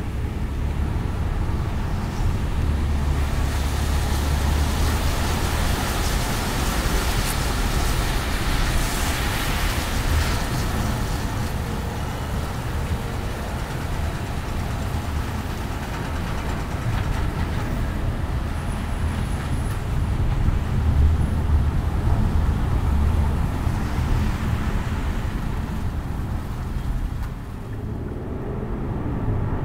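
Road noise from a car being driven: a steady low rumble of tyres and engine under a hiss that grows louder twice and then eases off.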